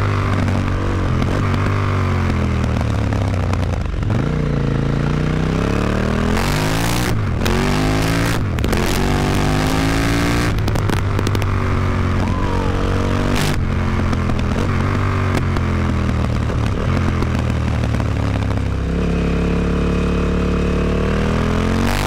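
KTM 950 Adventure's V-twin engine running through an Akrapovic exhaust with its dB killer fitted. The revs rise and fall again and again, then hold steadier near the end.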